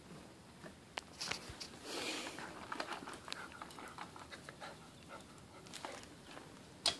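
Small dog breathing and snuffling as a plush toy chicken is pushed at its face, with handling rustles and scattered clicks. There is a sharp click near the end.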